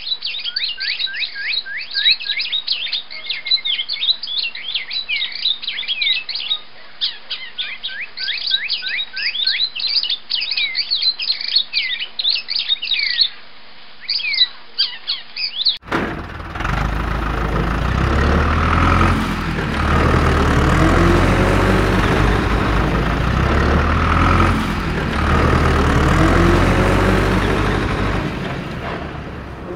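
Dense, rapid bird-like chirping, many quick falling calls, for roughly the first half. It stops suddenly and a loud low rumble takes over for the rest.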